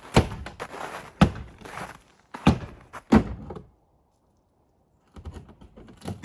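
Four heavy thuds, roughly a second apart, then a quiet spell and a few faint clicks and taps near the end.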